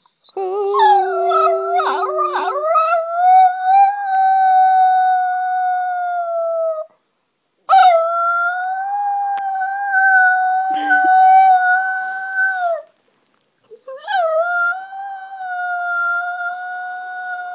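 Small white long-haired pet dog howling ("singing") on cue. It gives three long, steady howls with short breaks between them, and the first opens with a few wavering yips.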